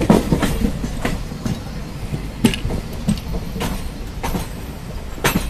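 Passenger train running, heard from on board: a steady low rumble with irregular sharp clacks as the wheels cross rail joints and points.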